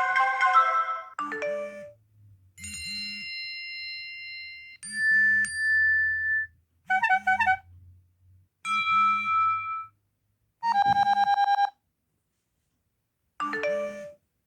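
A series of iPhone 4 text-message alert tones played one after another with short gaps. There are about seven short alerts, a mix of held chime notes and quick runs of notes. One, about eleven seconds in, is a rapid string of repeated beeps, and the last is a quick falling run of notes.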